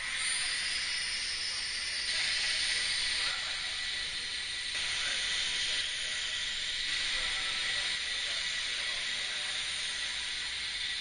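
A steady hiss, with the faint whine of small electric radio-control model aircraft motors rising and falling in pitch underneath.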